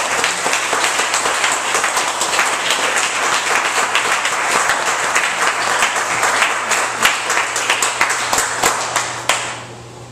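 A small audience applauding with many hands clapping, dying away near the end.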